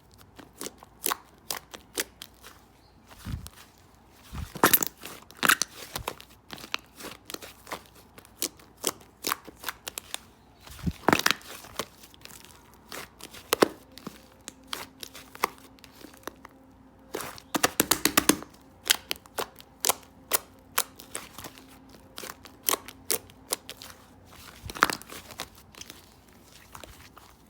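White clay slime worked by hand, giving off many sharp clicks and pops as air pockets burst, with a few louder pops and a quick run of them about two-thirds of the way through.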